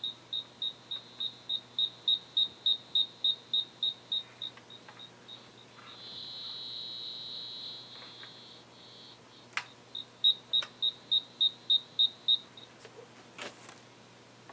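Circuit tracer receiver's audible indicator beeping: short high beeps about three a second, running into a steady tone for about two seconds midway, then quick beeps again. It is signalling the tracer transmitter's test noise picked up on the AC cords. A few sharp clicks come near the middle and near the end.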